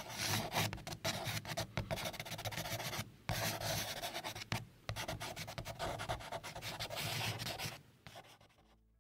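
Pen scribbling fast on paper, scratching continuously with two short breaks about three and four and a half seconds in, and dying away near the end.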